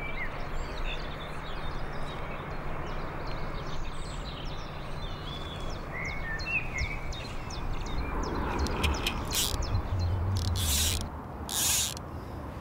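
Fly fishing cast at a pond's edge: a run of sharp clicks from the fly reel's ratchet as line is pulled off, then two short swishes of the fly line through the air near the end. Birds chirp over a steady outdoor background.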